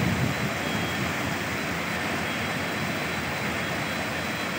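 Steady rushing noise of floodwater and heavy rain, with no breaks or separate impacts.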